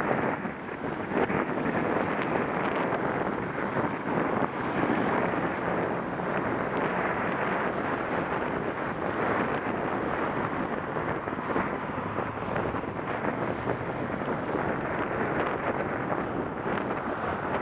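Wind rushing over the microphone of a camera on a moving bicycle, a steady rushing noise, with city car traffic running underneath.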